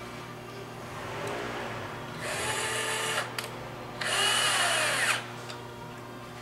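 Handheld power drill driving a screw through a ceiling bracket into wood: two runs of about a second each, the second louder, the motor pitch shifting as the screw bites.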